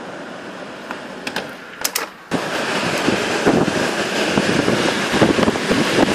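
Storm wind rushing through a tall conifer and garden trees and buffeting the microphone. A few short clicks come in the first two seconds, then a stronger, gusty blast sets in suddenly about two seconds in.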